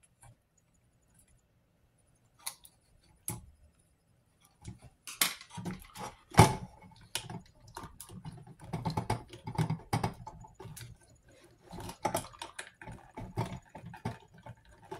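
Screwdriver breaking hardened glue around a capacitor on a power-supply circuit board, then the capacitor being worked loose by hand: scattered small clicks and scrapes that thicken about four seconds in, with one sharper knock about six seconds in.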